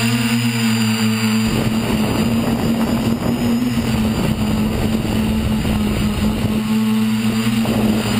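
A tricopter's electric motors and propellers hum steadily, heard through its onboard camera. A rough, rushing noise rides over the hum from about a second and a half in until shortly before the end.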